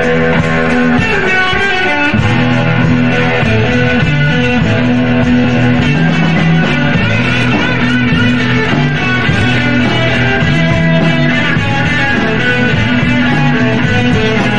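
Rock music led by guitar over a bass line, with the low notes shifting about two seconds in.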